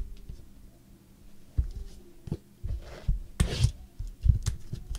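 Trading card packs and boxes handled on a tabletop: a sharp click, then a run of soft thumps and knocks with a brief rustle, over a faint steady hum.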